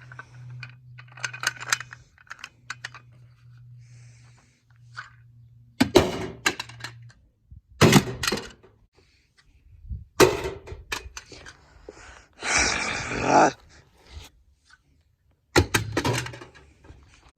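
A 2004 GMC Sierra pickup's door being worked with its newly fitted handle: latch clicks, then the door shut with a solid thunk four times over. A brief rushing noise comes between the third and fourth shuts.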